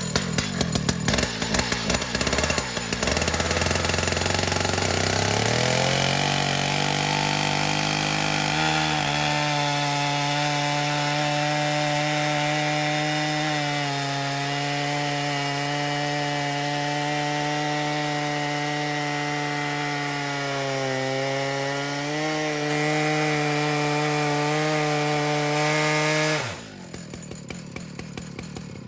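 Two-stroke chainsaw on an Alaskan mill: it idles, throttles up over several seconds to a steady full-throttle run cutting along a log, the pitch sagging slightly a couple of times under load, then drops suddenly back to idle near the end.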